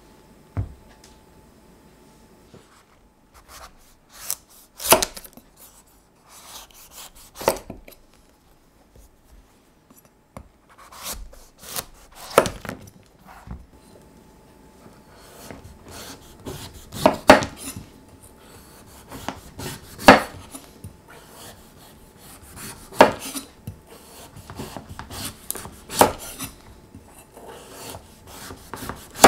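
A chef's knife slicing the skin off a small pumpkin on a bamboo cutting board. Scraping strokes through the firm rind are broken every few seconds by sharp knocks of the blade on the wooden board.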